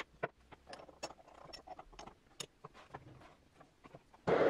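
Metal lathe machining a gear held in the chuck: sparse, irregular light clicks and ticks, then a loud steady machining noise starts suddenly about four seconds in.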